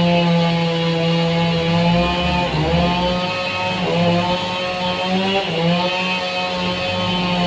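Sawmill running under load as it cuts a large trembesi log, with a steady engine-like hum whose pitch sags and recovers three times as the saw bites into the wood.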